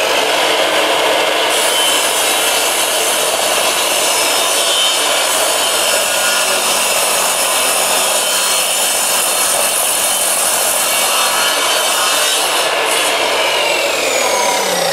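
Makita sliding compound miter saw running with a cheap discount-store 60-tooth crosscut blade, sawing through cherry wood. Near the end the motor is switched off and its whine falls as the blade spins down.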